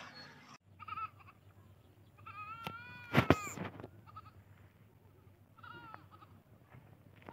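A goat bleating several times: short bleats about a second in and near the end, and one longer bleat a couple of seconds in that rises and falls in pitch. A sharp knock comes in the middle of the long bleat and is the loudest sound.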